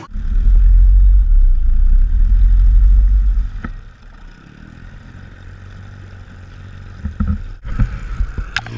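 Loud, muffled low rumble of water rushing over a waterproof camera housing held at the waterline beside a running boat motor. About three and a half seconds in it drops to a quieter underwater murmur, and a few splashes come near the end.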